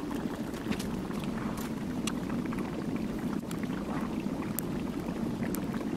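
Gas brazing torch flame running steadily as it heats a joint in steel square tubing, with scattered crackles.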